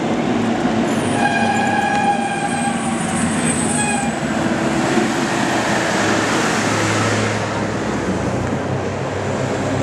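Farm tractor driving past close by: a loud, steady noise of engine and tyres, with a whining tone over it for a few seconds near the start.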